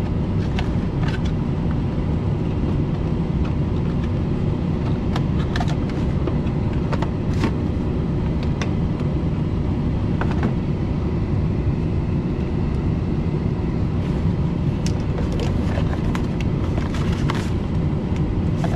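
Gas furnace blower running with a steady low rumble while the system runs in cooling. A few light clicks and rustles of handling sound over it.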